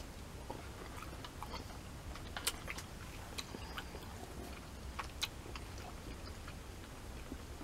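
Close-up chewing of udon curry noodles: soft, irregular wet mouth clicks and smacks, with a few sharper clicks around two and a half and five seconds in.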